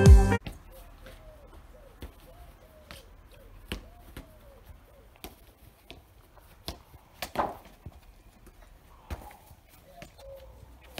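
A music cue cuts off about half a second in. Then there is quiet outdoor ambience with scattered light knocks and taps and a few faint, wavering distant calls.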